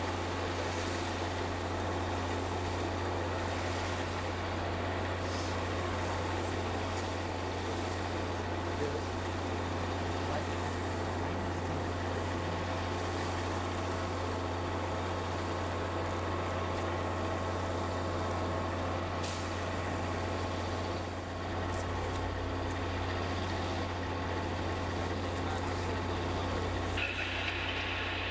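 Diesel switching locomotive running with a steady low drone. A higher hissing sound joins about a second before the end.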